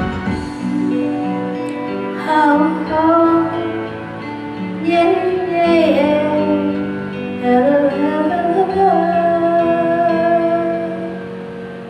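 A woman singing a pop ballad into a handheld microphone over a recorded backing track. She ends on a long held note, and the music fades away near the end.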